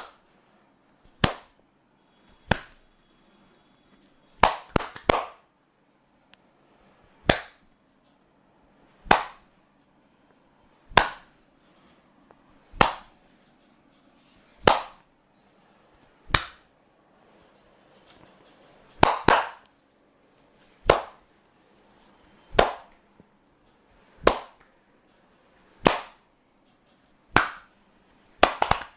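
Sharp hand slaps of a percussive massage, one about every two seconds, a few landing in quick doubles or triples.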